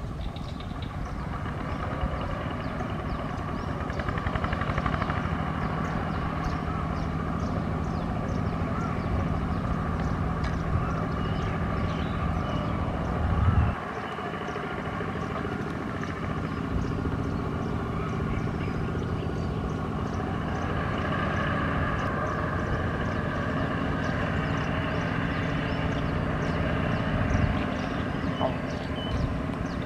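Kubota ZT120 walking tractor's single-cylinder diesel running steadily under heavy load as its wheels churn through deep mud and water, with splashing. A brief loud burst comes about halfway through.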